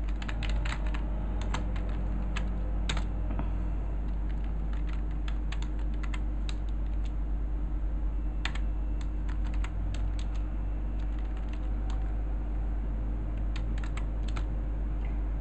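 Typing on a computer keyboard: irregular key clicks in short runs with pauses between them, over a steady low hum.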